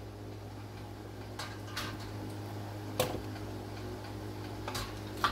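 A handful of sharp clinks from glass canning jars gripped in a metal jar lifter and set down into a water-bath canner, the loudest about three seconds in, over a steady low hum.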